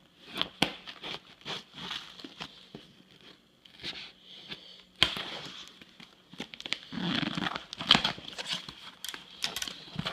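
A package being unwrapped by hand: irregular crinkling and rustling of packing material with sharp clicks and some tearing, busiest about seven seconds in.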